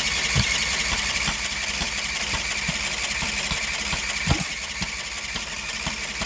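A 20 hp Briggs & Stratton V-twin being cranked over by its electric starter on a cold start with the choke on, not catching, with a few irregular low thumps as it tries to fire. The owner puts the refusal to start down to a spark problem.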